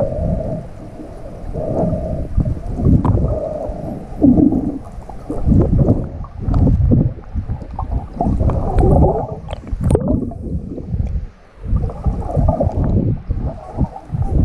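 Water sloshing and gurgling against an action camera's waterproof housing as it moves underwater and breaks the surface: a muffled, uneven churning that swells and drops every second or so, with a few sharp ticks partway through.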